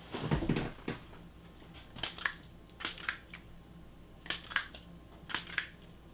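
Spray bottle spritzing acetone onto wet epoxy resin: short hissy spurts, mostly in pairs, about one pair a second, after a brief handling clatter near the start.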